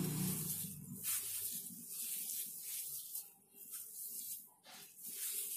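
A bare hand kneading crumbly chhena on a steel plate, kneading it toward a smooth dough: soft, irregular scraping and rustling strokes of palm and fingers against the metal, with two brief pauses.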